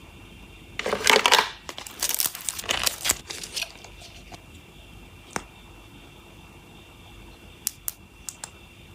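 Close-up crinkling and rustling of packaging handled for about three seconds, then a few short, sharp clicks of a cosmetic tube's cap being worked near the end.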